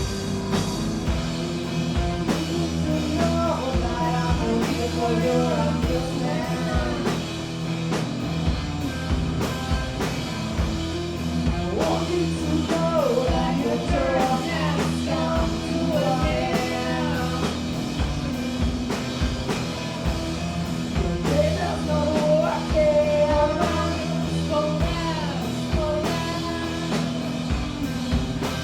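A punk rock band playing live, with drums, bass and guitars under a singer's vocal melody.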